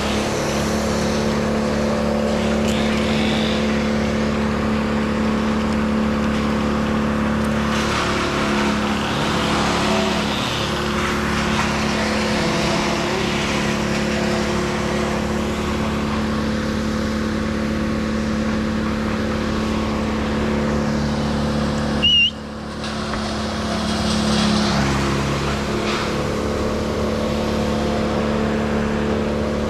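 An engine runs steadily at high, constant speed with little change in pitch. About 22 seconds in there is a brief sharp sound and a momentary dip.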